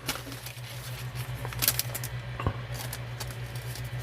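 Scattered light clicks and rustles of trading cards being handled, with a sharper tick about two and a half seconds in, over a steady low electrical hum.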